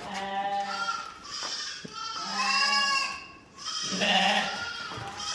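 Goats bleating: a run of about five calls, each about a second long, some overlapping, with a longer wavering bleat near the middle.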